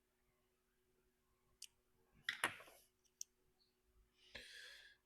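A few small, sharp clicks of slot car parts being handled while the front axle is taken apart, the loudest a quick pair about two and a half seconds in, then a soft short hiss near the end.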